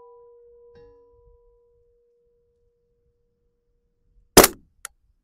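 Full-size IPSC steel target ringing after a hit, a steady tone that fades away over the first three seconds or so. About four and a half seconds in comes a single loud shot from a suppressed .308 KAC SR-25 rifle.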